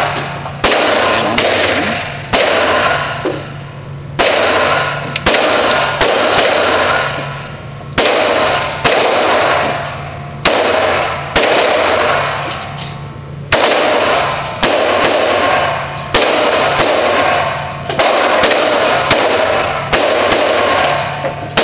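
CZ-82 9×18 mm Makarov pistol fired in a long string of single shots, roughly one a second with a few short pauses, each shot echoing and dying away before the next.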